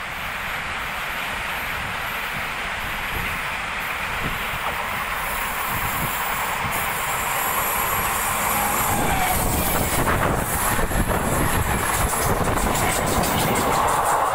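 Train passing at speed on mainline track, a steady rumble that grows louder, with wheels clattering rapidly over rail joints from about nine seconds in.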